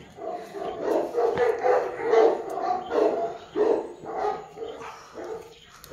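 Corgis mating, one of them giving short, repeated yelping cries about once or twice a second, fading near the end.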